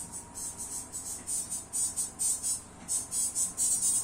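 Music played only through a pair of Broadway BCS 350-watt tweeters: a thin, hissy treble pulsing with the beat, with no bass or midrange. The crossover is filtering everything but the highs. It gets louder about three seconds in.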